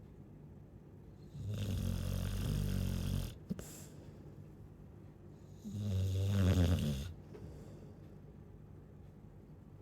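Chow chow snoring in its sleep: two long, low snores a little over four seconds apart, with quiet breathing between them. A short click sounds just after the first snore.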